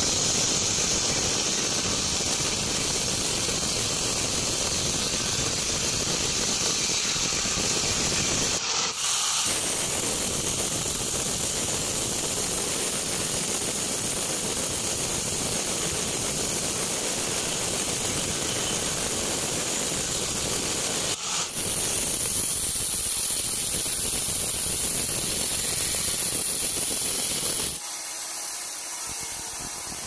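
Band sawmill blade sawing steadily through a teak log, with two brief dips in the sound. About two seconds before the end the sawing stops, leaving a thinner, quieter hiss.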